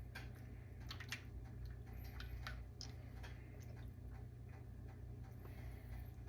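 Faint scattered light clicks and wet handling sounds as a pork chop is worked in a bowl of egg batter, over a steady low hum.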